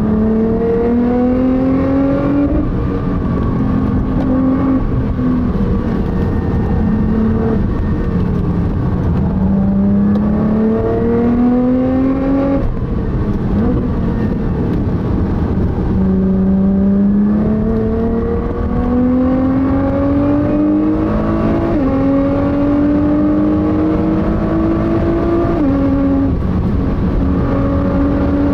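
Nissan GT-R SpecV's twin-turbo V6 heard from inside the cabin while accelerating hard, its pitch climbing through each gear and dropping sharply at gear changes several times, over steady tyre and road rumble.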